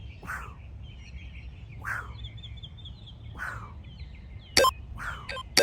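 Small birds chirping steadily in the background, with soft puffs about every second and a half and two sharp clicks near the end.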